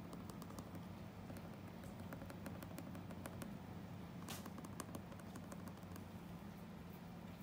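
Graphite drawing pencil tapping and scratching lightly on paper in many small, irregular clicks as a portrait is stippled in dots, over a low steady hum.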